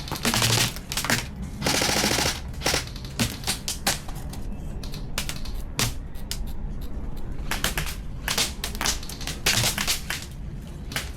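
Airsoft guns firing during a game: scattered single shots and short bursts, with one longer rapid-fire burst about two seconds in.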